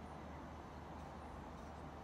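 Faint, steady low background rumble by a railway line, with a few faint high chirps.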